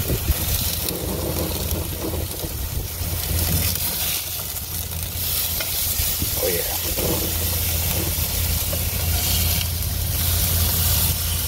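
Blackfin tuna fillets sizzling steadily in a hot oiled non-stick frying pan on a gas grill, searing on the outside. A metal spatula scrapes the pan a few times about halfway through as the fillets are turned.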